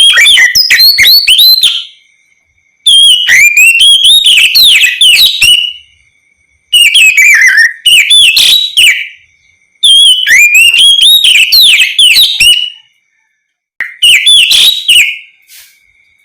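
Oriental magpie-robin (kacer) singing loudly in the open 'ngeplong' style: five bursts of rapid, whistled notes that sweep up and down, each burst one to three seconds long with short pauses between.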